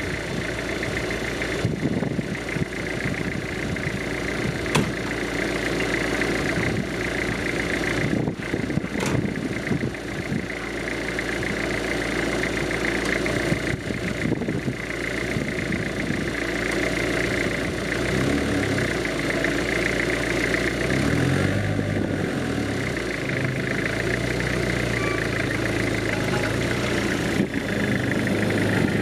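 Engine of a freshly built off-road vehicle running on its first drive, worked by a hand throttle. There are a few sharp knocks in the first ten seconds, and the engine note rises and falls a couple of times past the middle as it is revved through the gears.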